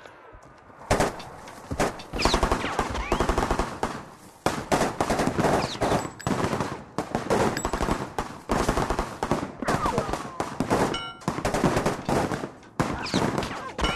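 Kalashnikov-type assault rifles firing on automatic in rapid bursts, starting about a second in, with short breaks between bursts.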